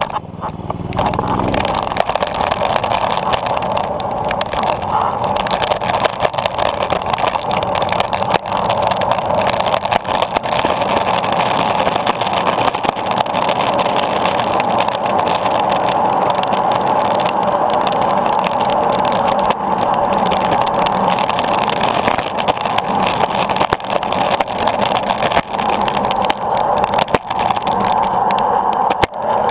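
Skateboard wheels rolling over rough asphalt while being towed, mixed with the small engine of a Doodlebug DB30 mini bike running ahead. The rolling noise picks up about a second in and stays steady and rough, with frequent small jolts.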